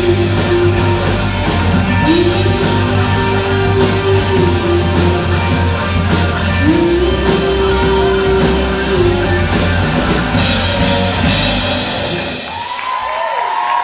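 Live country-rock band playing an instrumental passage: electric guitar holding long bent notes over drum kit and bass. The music stops about a second before the end, and the audience starts to cheer.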